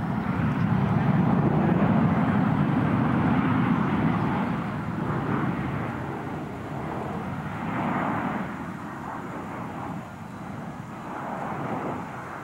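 Four Kawasaki T-4 jet trainers in diamond formation passing overhead: a broad jet rumble, loudest in the first four seconds and then fading, with brief swells about eight and twelve seconds in.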